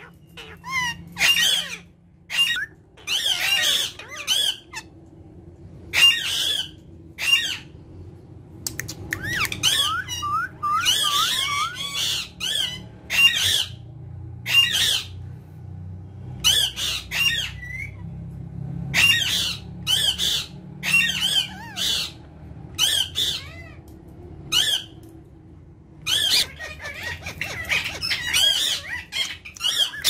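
Indian ringneck parrots (rose-ringed parakeets) calling: many short squawks in quick bursts with brief pauses, and a quieter stretch about halfway through.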